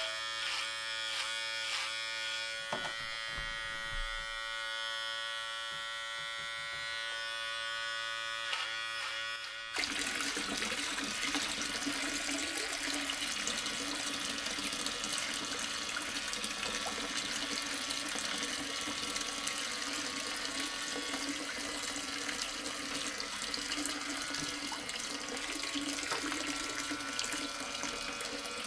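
A steady mechanical whine with several pitches runs for about ten seconds. It then gives way suddenly to water pouring and splashing steadily, as from a miniature water pump.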